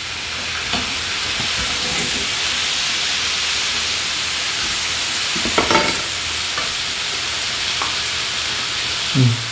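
Thin-sliced beef brisket sizzling steadily on a grill pan over a portable gas stove, with a few light clicks of tongs and chopsticks on the pan.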